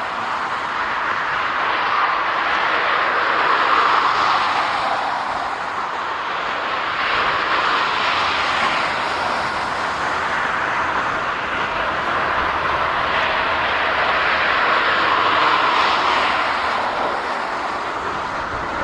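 Jet engines of a Boeing 737-400 running: a steady rushing noise that swells and eases several times.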